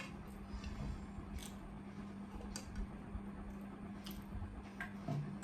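Quiet eating sounds: a few soft clicks and wet mouth noises spaced a second or so apart, over a steady low hum.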